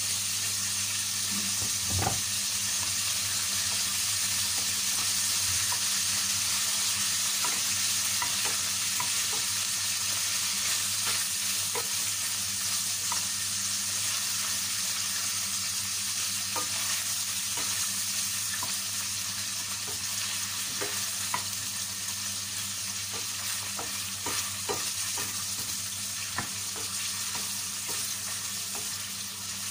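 Beef chunks sizzling in butter in a stainless steel pan, stirred with a wooden spoon that knocks against the pan now and then over a steady frying hiss.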